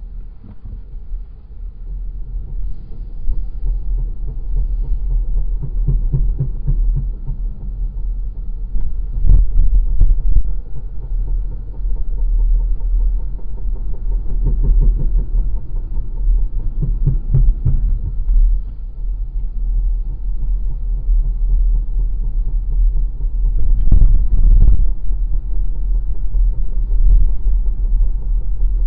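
2021 Volvo XC40 Recharge moving with a steady low rumble, and a rhythmic pulsing rub that comes and goes several times: the rear brake pads rubbing after the calipers have seized and let go. A few sharp knocks stand out, one about nine seconds in and two close together near 24 seconds.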